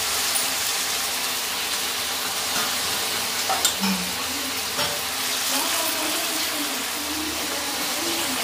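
Chopped vegetables and tomatoes frying in a pan on a gas burner, a steady sizzling hiss. A couple of light clicks of a small spoon against the steel spice tins come near the middle.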